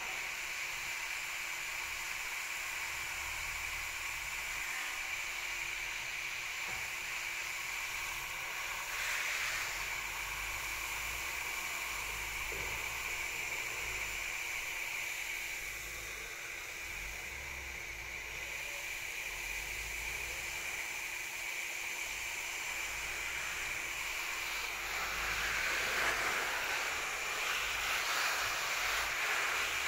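A fine shower spray of water hissing steadily and spattering onto garden foliage. It grows louder and rougher near the end as the spray hits large, broad leaves.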